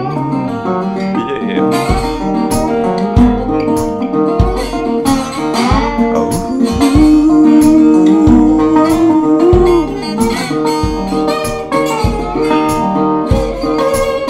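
Resonator guitar played solo in an instrumental break, with a regular low thump about every second and a bit keeping the beat and a long held note bent slightly upward in the middle.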